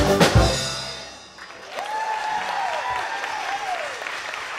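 Marimbas and a drum kit play the last loud strikes of a piece and ring away, then an audience applauds, with a long cheer rising and falling over the clapping.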